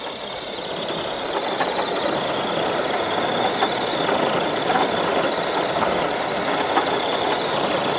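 Electric RC monster truck with dual 27-turn brushed motors pulling a weight sled slowly across dirt: motors and drivetrain running steadily under heavy load while the big tires spin and churn the dirt.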